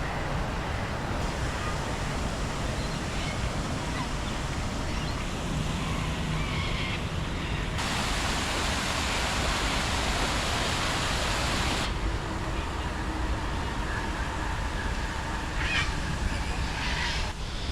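Rain falling with a steady hiss, over a low rumble. About eight seconds in, the hiss turns abruptly brighter and louder, then drops back about four seconds later.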